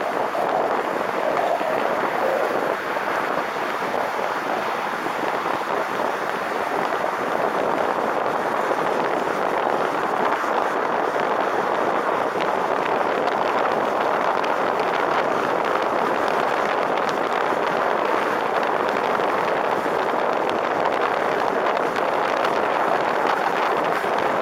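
Steady rush of wind over a camera microphone held out above the roof of a moving car at freeway speed, mixed with tyre and road noise.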